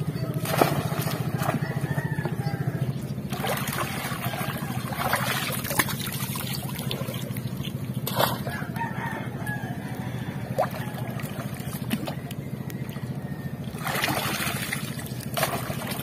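Water sloshing and splashing, with knocks of oyster-encrusted bamboo being hauled out by someone wading in the water; a rooster crows in the background over a steady low hum.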